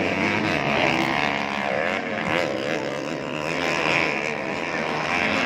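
Several motocross bike engines revving hard at once, their overlapping pitches rising and falling.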